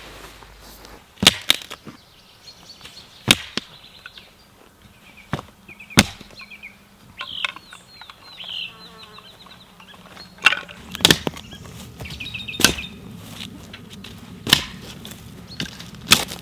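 Dry dead sticks snapping by hand and underfoot, breaking deadwood into firewood: a series of sharp cracks at irregular intervals. A bird chirps faintly about halfway through.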